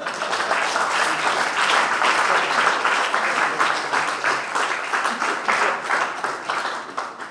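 Audience applauding, starting suddenly and thinning out toward the end.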